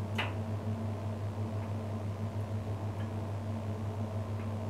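Walk-in freezer's electric defrost heaters running to melt ice off the evaporator, with the compressor and evaporator fans stopped: a steady low electrical hum with a faint tick about every second and a half.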